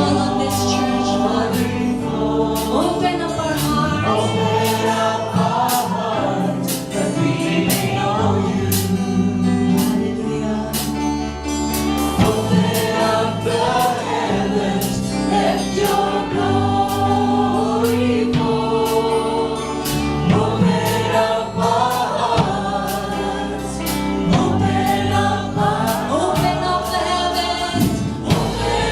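Live contemporary gospel worship song: a choir and worship team singing together over a band with sustained bass and a steady drum and cymbal beat.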